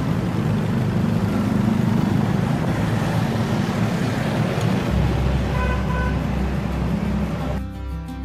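Saigon city street traffic noise, with a vehicle horn giving two short toots about six seconds in. Near the end the traffic cuts off and acoustic guitar music starts.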